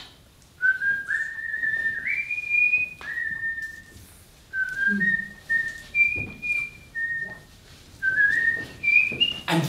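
A person whistling a slow, halting tune: about a dozen clear notes, several sliding up into pitch, climbing to the highest notes near the end.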